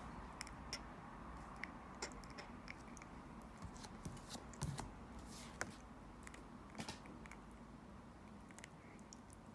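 Faint, irregular small ticks and soft rustles over quiet room tone, the sound of small objects being handled close by.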